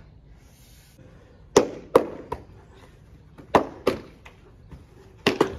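Sharp slaps of hands on bare skin as two kushti wrestlers hand-fight, coming in short clusters of two or three, with a quick run of three near the end.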